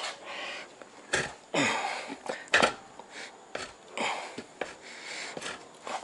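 A manual mini tire changer's steel bar and a Kubota BX tractor tire working against the steel rim as the tire is levered on: rubbing and scraping with several sharp metal knocks at irregular intervals.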